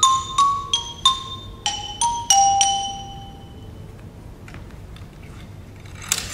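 Mallet keyboard percussion instrument played with hard mallets: a quick downward pattern of single struck notes, about three a second, ending on a low note that rings for about a second and fades. Near the end comes a brief clatter.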